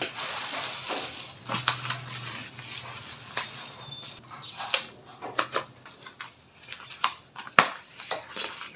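Plastic courier pouch opened and its contents unwrapped by hand: crinkling and rustling of plastic and wrapping, then cardboard packaging handled, with scattered sharp clicks and snaps.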